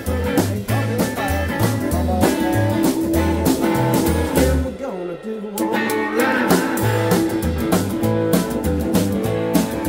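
A rockabilly band playing live, with a stepping bass line, drums and electric guitar. About five seconds in the bass and drums stop for a moment, then the band comes back in.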